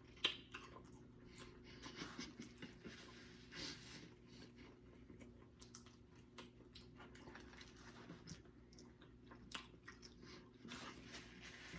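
Faint close-up chewing and biting of a person eating Cajun-seasoned neck bones, with scattered small clicks and one sharper click just after the start.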